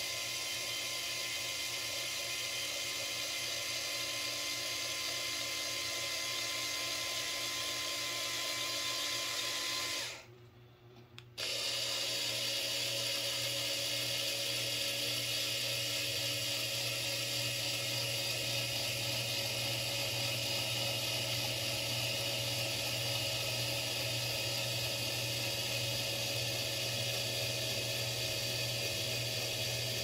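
8-inch linear actuator's electric motor and gear drive whining steadily as it moves its rod. It stops for about a second and a half some ten seconds in, then runs again at a slightly different pitch, the rod ending retracted.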